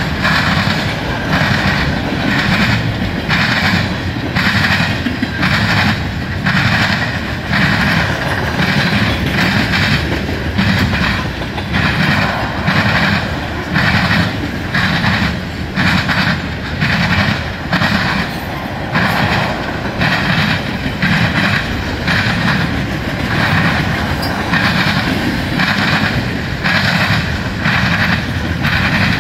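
Freight cars of a CSX train rolling past at close range: a steady rumble of steel wheels on rail with a regular clickety-clack beat.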